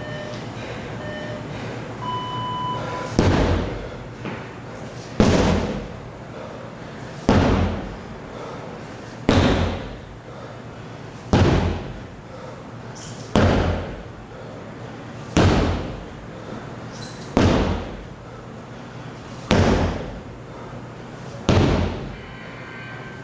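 Two short electronic beeps and a longer one, typical of a tabata interval timer, then a sledgehammer striking ten times, one heavy thud about every two seconds.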